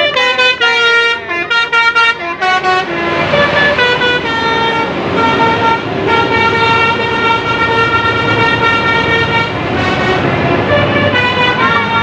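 Telolet musical bus horn playing a tune: a quick run of changing notes for the first few seconds, then several horn notes held together as one long steady chord for about seven seconds.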